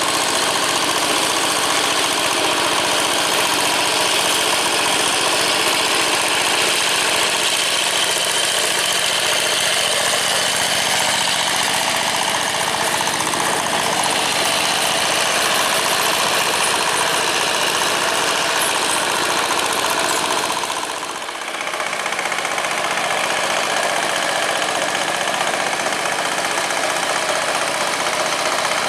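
Single-cylinder diesel engine of a walk-behind two-wheel tractor running steadily under load as its cage wheels work through flooded paddy mud. The level dips briefly about two-thirds of the way through.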